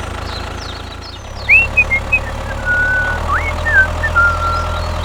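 Steady low engine drone of a miniature tractor. From about a second and a half in, a string of short high chirps and whistles sounds over it.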